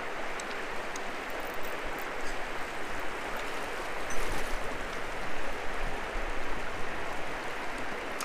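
Steady rush of a shallow, rocky mountain creek running over stones, with a brief splash about four seconds in as a hooked trout is brought to the net.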